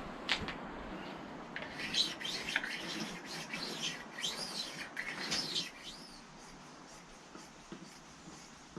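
A small bird chirping and twittering in a run of quick, high notes that rise and fall, lasting about four seconds from a second and a half in, after a single sharp click near the start.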